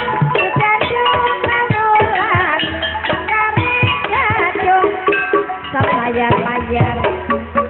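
Javanese gamelan music: ringing gong-chime and metallophone notes over hand-drum strokes, playing without a break.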